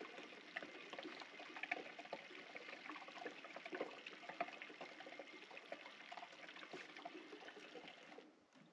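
Coolant being sucked through a vacuum refill tool's hose into an engine cooling system held under vacuum: a faint, steady crackling trickle of flowing liquid. It cuts off suddenly near the end, as the valve on the hose is handled.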